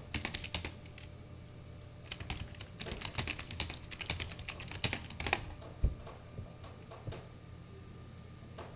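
Typing on a computer keyboard: quick runs of key clicks separated by short pauses, thinning to a few single keystrokes near the end.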